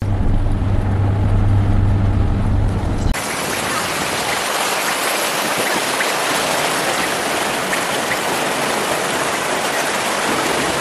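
A vehicle's cabin rumble with a low engine drone as it drives through shallow water on a flooded road, then, from a cut about three seconds in, the steady loud rush of fast floodwater surging along the side of the vehicle as it wades.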